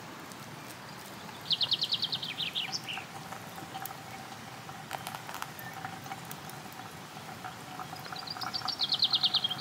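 A songbird sings twice, each song a fast trill of rapidly repeated high notes that drops lower at the end. Under it, faintly, a thin stream of hot water trickles from a camp kettle into a pour-over coffee filter.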